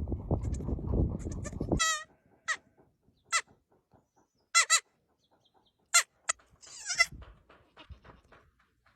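Baby goats bleating: a string of short, high-pitched cries, starting about two seconds in after a low rumbling noise. The last cry, around seven seconds in, is longer and wavering.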